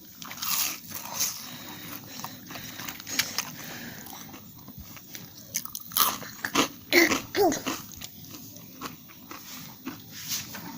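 Crunchy fried pakora being bitten and chewed: irregular crisp crunches and clicks, busiest about six to eight seconds in.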